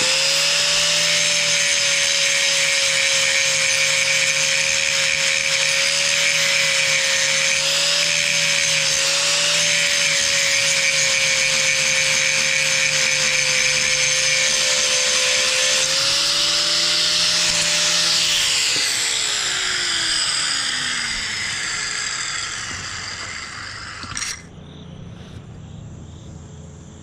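Angle grinder running with its disc grinding down a high spot on fiberglass: a steady motor whine over a harsh grinding hiss. About eighteen seconds in it is switched off and winds down with a falling whine.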